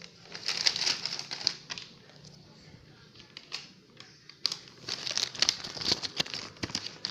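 Crinkling and rustling with many light clicks, in two spells: over the first couple of seconds and again from about four and a half seconds in.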